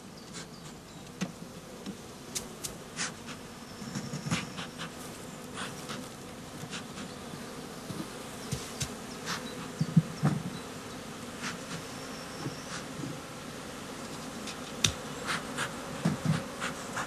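Honeybee colony buzzing steadily at a hive entrance, the bees stirred as the hive is opened. Scattered short clicks and light knocks sound over the buzz, the loudest about ten seconds in.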